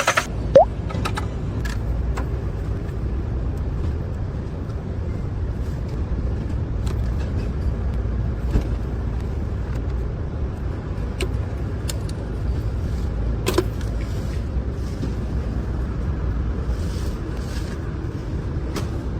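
Steady low rumble from a car, with a few faint clicks and a short rising squeak about half a second in.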